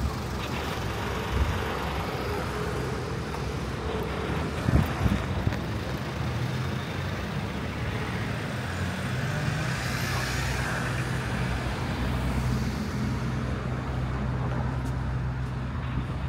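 Street traffic: vehicle engines running and passing, with a steady low engine hum that grows stronger partway through. A few short knocks about five seconds in.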